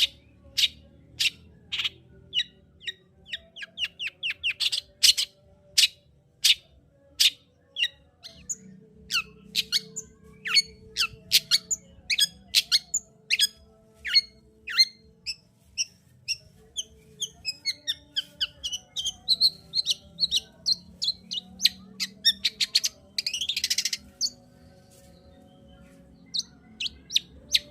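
Long-tailed shrike (cendet) singing: a fast run of sharp, loud chips and short whistled notes, with a harsh rasping call lasting about a second a little before the end, then a short pause.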